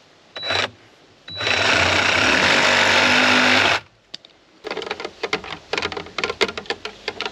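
Cordless reciprocating saw cutting through conduit: a short burst, then about two and a half seconds of steady fast sawing that stops suddenly. Then a run of irregular crackling clicks from handling.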